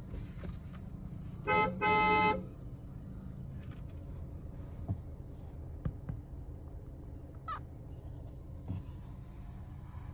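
A car horn honks twice in quick succession about a second and a half in, over a steady low engine hum: the horn signal for the start of a drag race.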